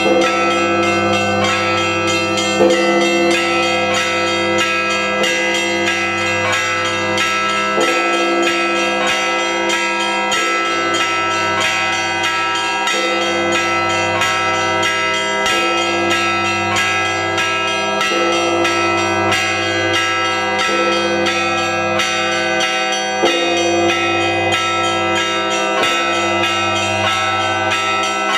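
Orthodox church bells ringing in a continuous festal peal for the Feast of the Transfiguration: small bells struck several times a second over deeper bells that keep sounding beneath them.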